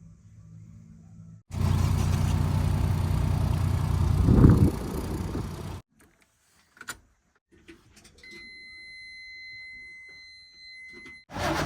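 Heavy machinery's diesel engine running loud, revving up about four seconds in, then cutting off abruptly. After a near-silent gap with a few clicks, a steady high-pitched beep holds for about three seconds before loud engine sound cuts straight back in.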